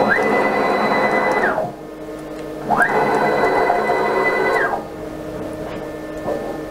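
Stepper motors of a 6040 CNC router jogging the spindle head in two rapid moves. Each is a whine that rises quickly in pitch, holds steady for about a second and a half, then falls away; the second move starts about three seconds in. A steady low hum runs underneath.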